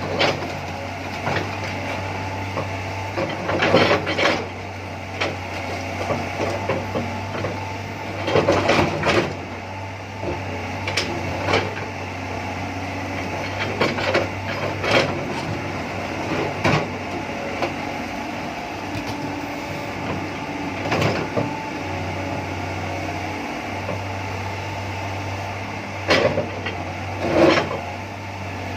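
A machine running steadily with a low hum, with irregular knocks and clatters every few seconds over it.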